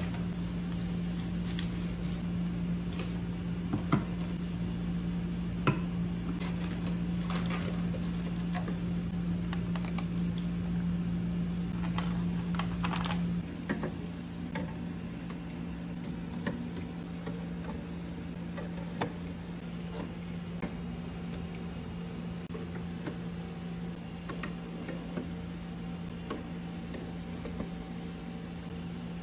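Paper grocery bag rustling and items being set down on a table; then, about halfway through, brown eggs being tapped one at a time into a refrigerator door's plastic egg tray. A steady low hum runs underneath.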